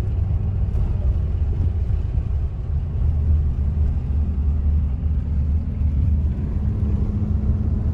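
Pickup truck driving uphill, heard from inside the cab: a steady low rumble of engine and road noise. A faint engine hum steps down a little in pitch about six seconds in.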